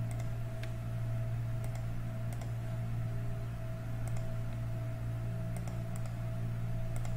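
Steady low electrical hum with a faint high whine over it, and a scattered handful of faint computer mouse clicks.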